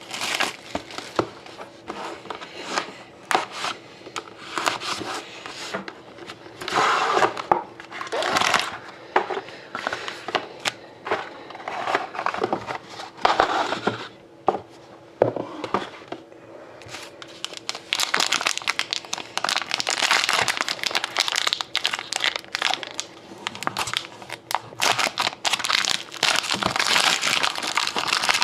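Plastic wrapping on a box of Panini Prime hockey trading cards being torn open and crumpled by hand: irregular crackling and crinkling that turns into dense, continuous crinkling about two-thirds of the way through.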